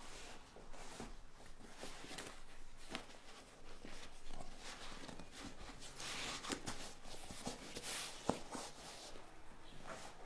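A car seat cover rubbed and handled as it is pulled and smoothed over the seat, with scattered soft knocks and a sharp click a little after eight seconds in.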